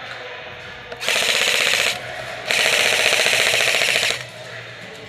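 An airsoft electric rifle firing two full-auto bursts, the gearbox cycling in a fast rattle: a short burst about a second in, then a longer one of about a second and a half.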